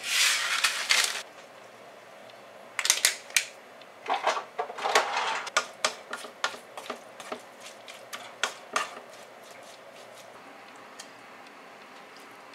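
A brief hissing patter as white sesame seeds are sprinkled into a frying pan of stir-fried burdock and carrot. Then a wooden spatula stirs the stir-fry, knocking and scraping against the pan in a run of irregular clacks for about six seconds, then only faint ticks.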